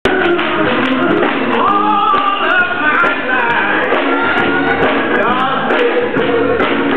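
Live gospel song: a man's voice singing into a microphone over a band and choir, with the congregation clapping along.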